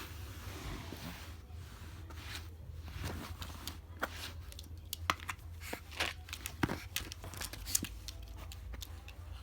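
A dog scrabbling to snatch a toy: a run of sharp clicks and scrapes, thickest in the middle, like claws and paws scratching on a hard surface.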